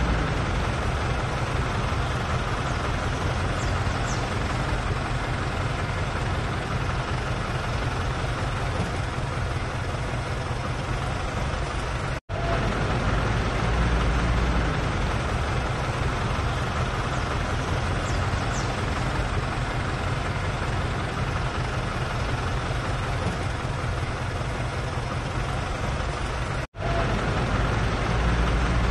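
Steady rumbling noise with a strong low end and no clear tones, cutting out briefly twice, about 12 and 27 seconds in.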